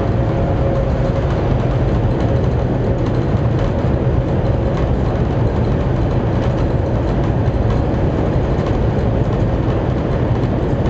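Cabin noise inside a CRH high-speed train cruising at about 316–319 km/h: a loud, steady rumble and rush, heaviest in the low range, with no let-up.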